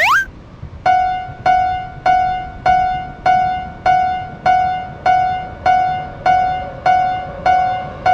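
Japanese level-crossing warning bell ringing its repeated 'kan-kan' clang, just under two strikes a second, starting about a second in. A short rising whistle-like glide sounds at the very start, and a faint steady tone creeps in under the bell near the end.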